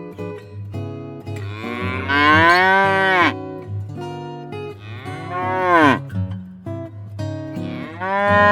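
An animal calling three times: long, drawn-out calls that rise and then fall in pitch, over background acoustic guitar music.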